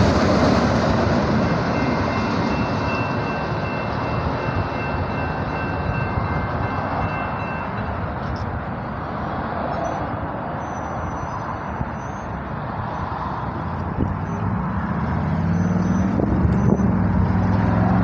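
Rumble of a freight train's last auto-rack cars rolling past and fading away, with a faint high steady ringing in the first half. Near the end a road vehicle's engine hum comes up.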